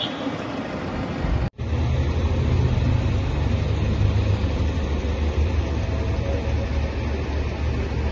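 Street traffic: a double-decker bus and other road vehicles making a steady low rumble. The sound cuts out for an instant about a second and a half in, then the rumble carries on.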